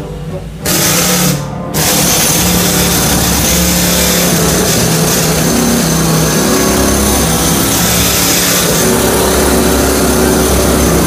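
Power chipping hammer running inside a riveted steel drum, knocking crusted build-up off the walls. It starts about a second in, stops briefly, then runs steadily.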